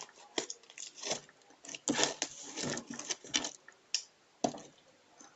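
Hands squishing and kneading homemade slime, giving irregular squelches and crackles.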